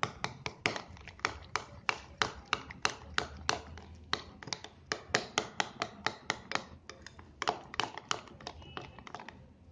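A steel spoon clicking against a ceramic bowl as curd and gram-flour batter is stirred briskly round, in an even run of about three to four clicks a second with a short break about seven seconds in.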